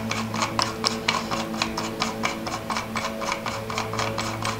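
Front cover of a Celestron StarSense AutoAlign camera being screwed down by hand: a quick, even run of small ticks and rubs, about five a second, as the cover turns on its threads.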